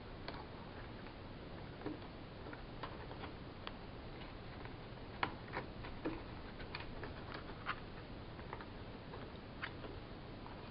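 Light, irregular clicks and ticks from the push-in wire connectors on a Nest Learning Thermostat (2nd generation) back plate, as thermostat wires are pressed into the terminals.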